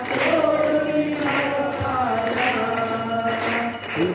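Several voices chanting a Hindu devotional hymn together, long held notes sliding gently from one pitch to the next.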